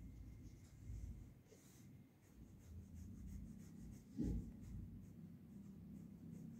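Faint scratching of a flat paintbrush stroking paint onto cloth stretched tight in a wooden embroidery hoop, with one dull thump about four seconds in.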